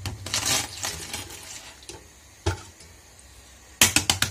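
Hard-boiled eggshells being cracked against a countertop so they peel more easily: a single tap about halfway, then a quick burst of several sharp taps near the end. A softer rustling noise fills the first second.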